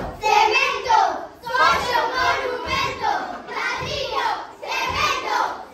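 Several children's voices shouting and calling out together, in loud phrases about a second long.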